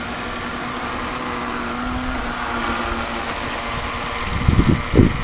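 Small 9.6-volt electric motor of an RC toy boat running steadily as the boat crosses the water, its hum fading after about three seconds. Near the end, wind gusts buffet the microphone.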